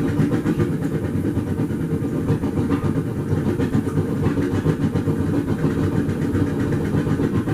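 Steady low mechanical rumble of running shop equipment, continuous and unchanging.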